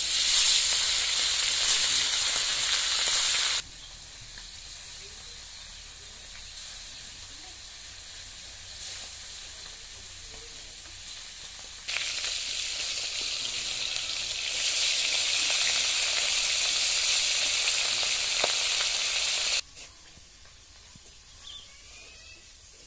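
Turmeric-coated hilsa fish pieces frying in hot oil in an iron kadai: a loud, steady sizzle. It drops abruptly to a much quieter sizzle after about three and a half seconds, comes back loud about twelve seconds in, and falls away again near the end.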